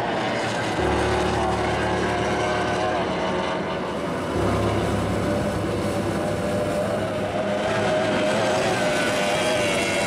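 Racing powerboat engines running hard on the water, a dense steady drone with a wavering pitch.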